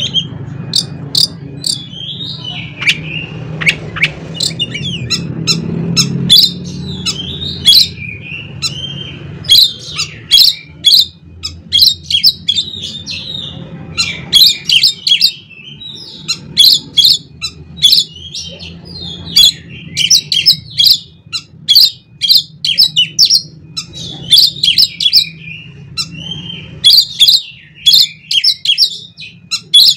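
Oriental magpie-robin (kacer) singing loudly in repeated bursts of rapid, sharp whistled and chattering notes, with short pauses between phrases. A steady low hum runs underneath.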